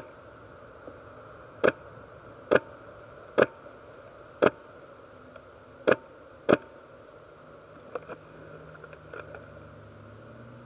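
Airsoft gun firing single shots: seven sharp cracks over about seven seconds, at uneven gaps of roughly a second, then two fainter clicks.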